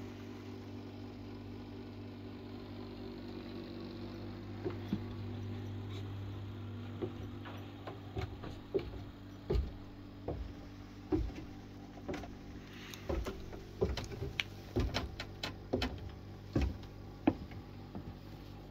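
A steady low hum that fades after about six seconds, and a run of irregular knocks and clicks that starts about four seconds in and grows busier in the second half.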